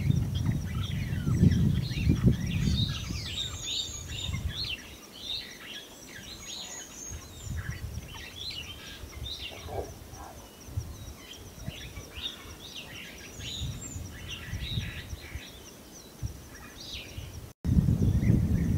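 Wild birds chirping and calling over a steady high hum, with low rumbling noise in the first few seconds. Near the end the sound cuts out abruptly and the low rumble returns louder.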